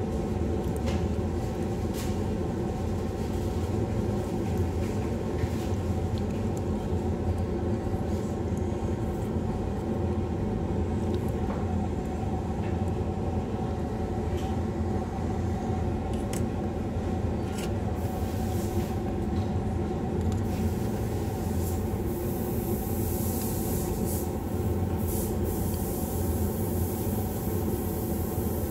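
Spray booth exhaust fan running with a steady low hum. A few light clicks come through, and about two-thirds of the way in a soft high hiss joins it.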